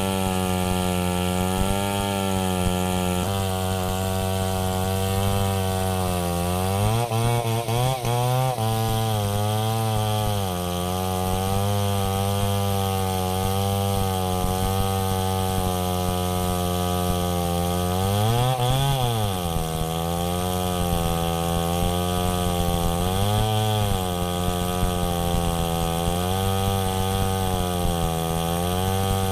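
Chainsaw engine running under load through a cut in a large log, its pitch holding steady and then swinging up and back down as the throttle is worked, around 7 to 8 seconds in and again near 19 seconds.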